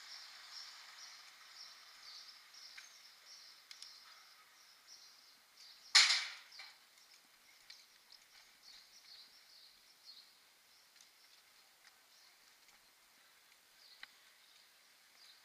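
Faint riding noise of a mountain bike coasting on a paved street: a light hiss with small ticks through it, and one sudden short rushing burst about six seconds in.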